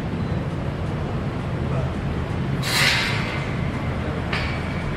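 Red-and-white cloth flag being flung open, a loud rustling swish of fabric about two and a half seconds in and a shorter, fainter one near the end, over a steady low rumble.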